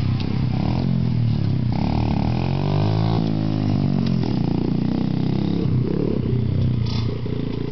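Small dirt bike engines running and revving, their pitch rising and falling as they ride around. One bike passes close by a few seconds in.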